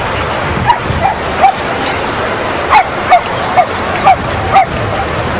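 A dog barking in short, sharp barks, about eight of them in quick groups of roughly two a second, starting about a second in, over a steady background hiss.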